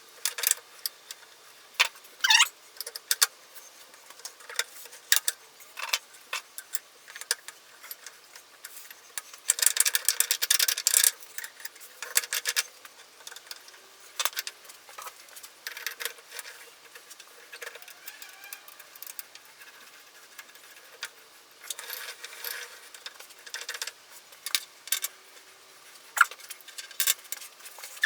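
Metal parts and hand tools clinking and rattling during work on a cast-iron post drill, as irregular sharp clicks. There is a brief rising squeak about two seconds in, and a longer busy stretch of rattling near the middle.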